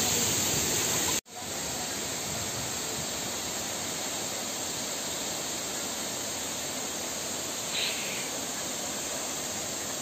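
Steady rushing hiss, even across high and low pitches, broken by a sudden instant's dropout about a second in.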